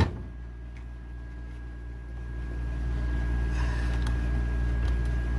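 Steady low mechanical hum with a thin, steady high whine above it, and a few faint ticks as the trimmer's fuel line and plastic parts are handled.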